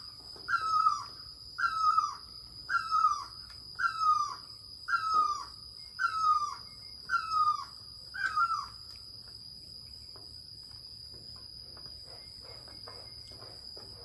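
A pet bird yelling over and over: a falling, squawking call about once a second, ten calls in a row that stop about nine seconds in.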